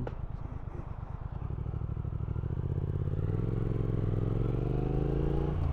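Triumph Speed Twin 1200's 1200 cc parallel-twin engine pulling away out of a roundabout. The revs climb steadily for several seconds and dip briefly near the end.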